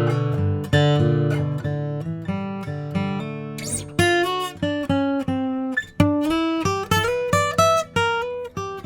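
Martin HD-28 dreadnought acoustic guitar (Sitka spruce top, rosewood back and sides) played solo, unprocessed. Full ringing chords give way, about halfway through, to a line of separately picked single notes, with a brief scratchy sound just before the change.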